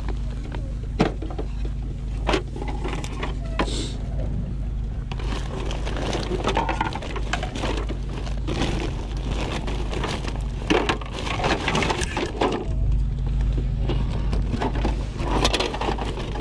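Scattered knocks, clicks and crinkles of a boxed Lego set being handled and dropped into a bag, over a steady low background hum.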